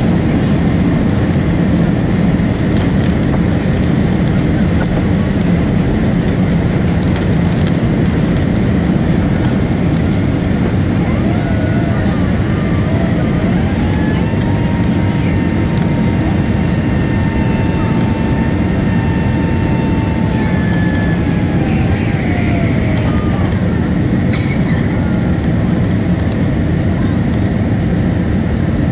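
Cabin noise of a Boeing 767-300 at takeoff: the twin jet engines at takeoff power and air rushing past the fuselage give a loud, steady, deep roar that holds through the end of the takeoff roll, liftoff and initial climb. Through the middle, faint whines bend up and down in pitch for several seconds, and a short sharp click comes near the end.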